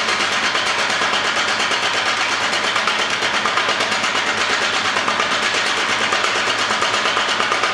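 Home-built power hammer running on test, its ram hammering in a fast, even rhythm of many strokes a second.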